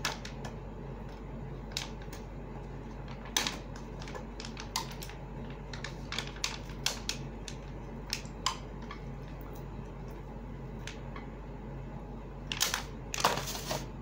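Disposable aluminium foil tray clicking and crinkling as it is handled and grilled chicken is pulled out of it by hand: scattered sharp clicks, with a longer crinkling rustle near the end, over a steady low hum.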